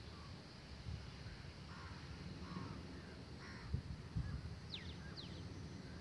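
Crows cawing faintly three times, with two quick high falling whistled notes from another bird near the end, over a steady low rumble.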